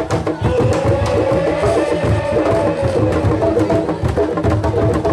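Music with drums and other percussion keeping a fast, steady beat, over a held melodic line that rises and falls slowly.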